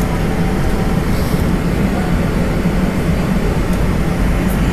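Airbus A320 cabin noise while taxiing, heard from a seat over the wing: a steady engine hum over a low rumble.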